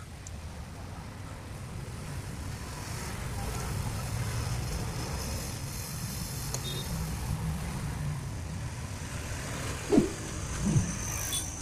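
Road traffic rumbling steadily, swelling as a vehicle passes. Near the end come a few short, sharp metallic knocks and squeaks from a steel hand tool working a bolt on the rickshaw's brake drum.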